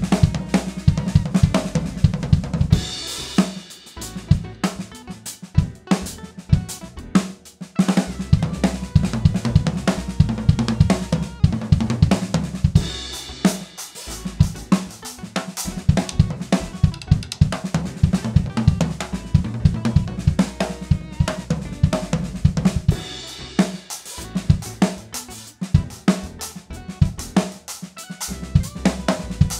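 Natal drum kit playing a groove along with a backing track at about 85 beats a minute. Sixteenth-note triplet fills lead into cymbal crashes about every ten seconds.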